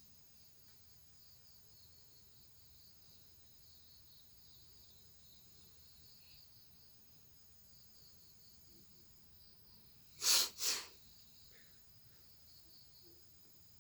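A person blowing their nose hard twice in quick succession, two short forceful blasts about half a second apart, about ten seconds in, clearing a congested nose.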